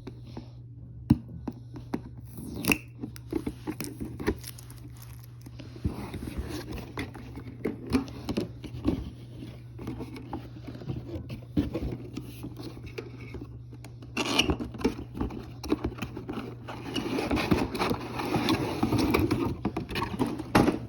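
Packaging of a boxed toy RC car being handled and opened by hand: cardboard and plastic scraping and rustling, with scattered sharp clicks and knocks. The rustling is heaviest near the end.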